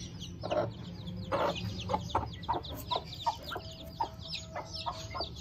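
Newly hatched desi chicken chicks peeping rapidly and continuously in short, high, falling chirps, with the mother hen's short low clucks breaking in every second or so.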